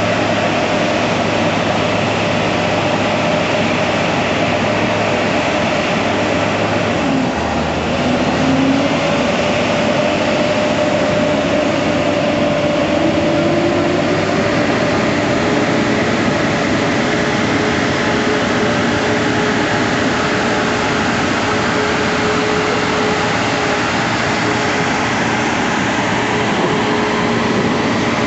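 Diesel engine of a motor grader running as it drives through floodwater, over a steady loud rushing noise. The engine's pitch dips and then climbs from about seven to fourteen seconds in.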